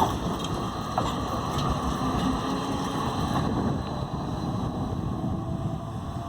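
Light rail train of coupled TW 2000/2500 cars running through a turning loop: steady wheel-and-rail rumble with a few clicks, growing quieter after about three and a half seconds as it moves away.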